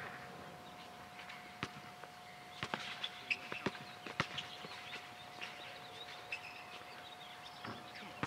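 Distant pickup basketball play: scattered faint thuds of a basketball bouncing on the court and footsteps, most of them between about one and a half and four and a half seconds in, over a steady faint high tone.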